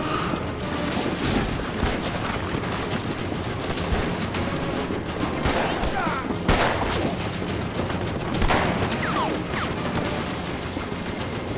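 Gunfire in a film battle scene: scattered rifle shots over a continuous din of action noise, with several sharp shots standing out, the loudest about six and a half seconds in.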